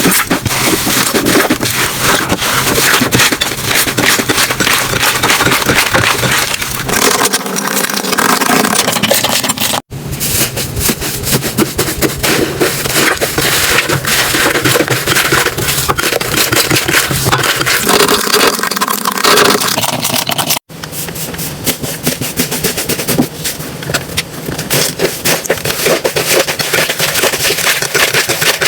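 Slime being squeezed and worked by hand, giving a dense, continuous crackling and popping. The sound breaks off abruptly twice, about ten and twenty seconds in, as one clip cuts to the next.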